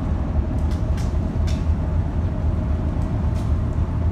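Steady low drone of a car ferry under way, its engines running, with wind rumbling on the phone's microphone.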